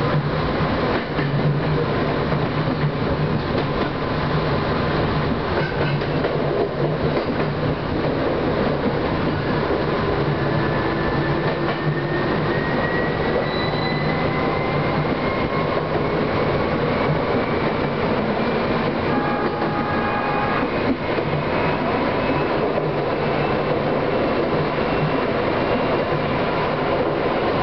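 Chichibu Railway electric train heard from the driver's cab, running along the main line: a steady low hum with a motor whine that rises slowly in pitch as it picks up speed, and wheels clicking over rail joints.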